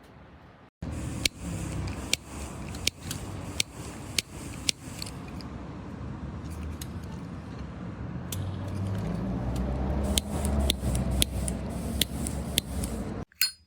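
Zippo double-torch butane lighter insert being clicked again and again: sharp ignition clicks, irregularly spaced, over a low rumble that grows stronger in the second half.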